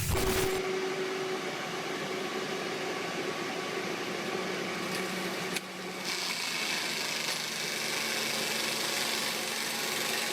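Steady machine noise, a hissing rush with little low end, that shifts abruptly about six seconds in.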